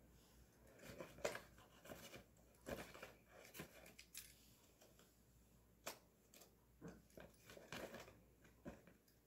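Metal tongs clicking as they grip a small cardboard carton, with the carton tapping and rustling against a paper container as it is lifted and tipped. Faint, irregular taps and crinkles, about a dozen in all.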